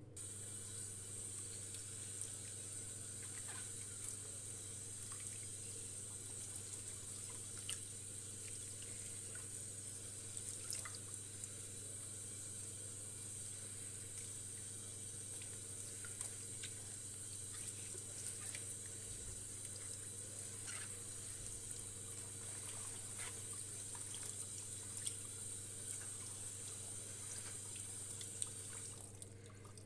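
Kitchen tap running steadily into a sink while greens are rinsed in a metal colander, with small splashes and clicks from the leaves being handled; the water shuts off about a second before the end.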